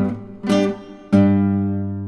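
Background acoustic guitar music: a chord is strummed about half a second in, then a stronger chord a little after a second that rings on and slowly fades.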